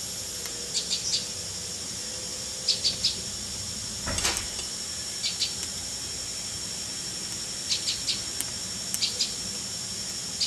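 Common tailorbird calling in six short bursts of two or three sharp high notes, over a steady high-pitched drone of insects. A brief rustle about four seconds in.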